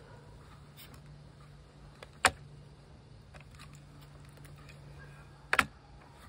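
BB gun's cocking lever being pumped: two sharp metallic clacks, one about two seconds in and a quick double one near the end, over a faint steady background.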